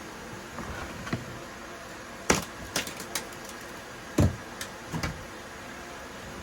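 A handful of sharp knocks and clunks, the loudest a dull thump about four seconds in, as of wood or tools being handled, over a steady background hiss.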